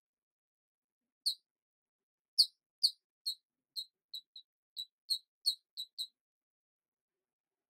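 A series of about a dozen short, high-pitched squeaks, spaced out at first and coming quicker and closer together between about three and six seconds in, with silence between them.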